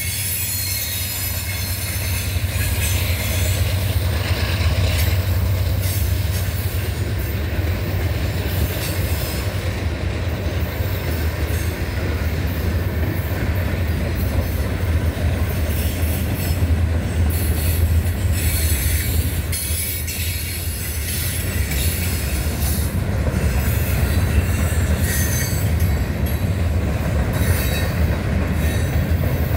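Freight train cars (tank cars and boxcars) rolling past at close range: a steady rumble of steel wheels on the rails, with high wheel squeal and clatter coming and going.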